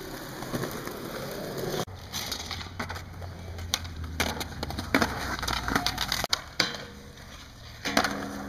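Skateboard wheels rolling on concrete with a low rumble, broken by several sharp clacks of the board striking the ground.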